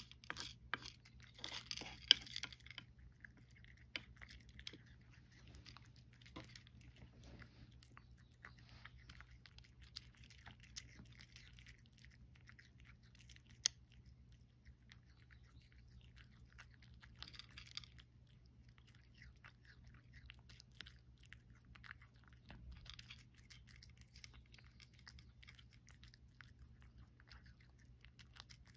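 Domestic cat eating dry kibble mixed with canned food: faint, close, irregular crunching and chewing. A louder scraping rustle in the first few seconds, while a hand stirs the food on the tray.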